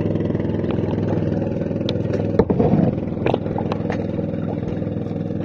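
Motorboat engine running with a steady drone, with a few short knocks about two and a half and three and a half seconds in.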